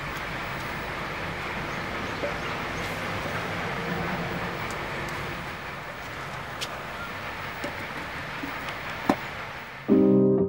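Greens boiling in water in an open clay pot: a steady bubbling hiss with a few scattered clicks. Piano music comes in abruptly near the end.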